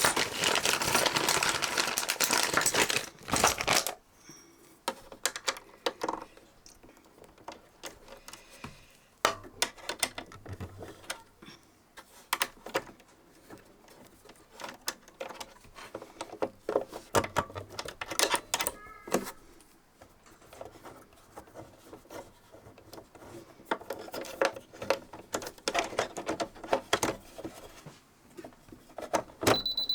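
Scattered small clicks and taps of a screwdriver and the plastic and metal parts of a sewing machine's drop-in bobbin area being handled as the screws are undone and the parts taken apart. A louder rustling noise fills the first few seconds.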